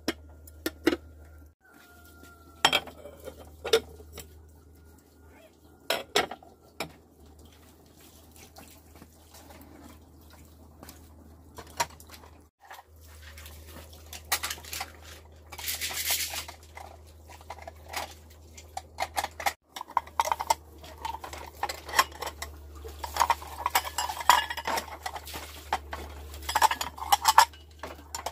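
Kitchen pots, pans and utensils clattering and clinking in scattered knocks, growing busier in the last third. A short hiss sounds about halfway through, over a steady low hum.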